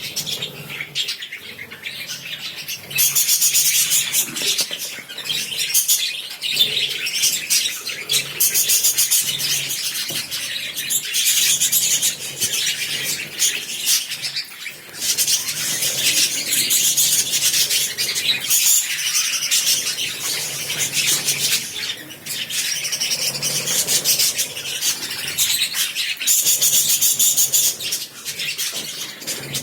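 A flock of small caged pet parrots, the birds sold in India as love birds, chattering and chirping continuously in a dense high-pitched twitter that swells and eases in loudness.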